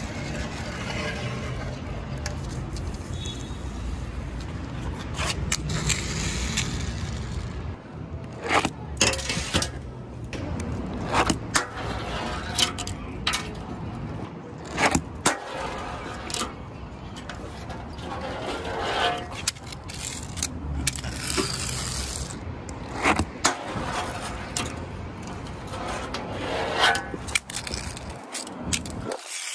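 Tech Deck fingerboard clacking and rolling over metal and concrete: irregular sharp clicks as the tail and wheels strike the surfaces, with short scrapes in between, over a low street rumble.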